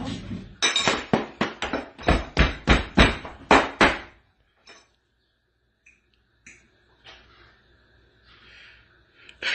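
A rapid run of about fifteen sharp knocks on a hard kitchen surface, about four or five a second, stopping after roughly three seconds; a few faint clicks follow.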